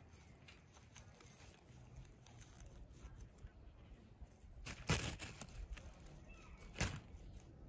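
Two brief rustles about two seconds apart, from a leafy stem brushed close by as it is waved at a kitten, over a faint quiet background.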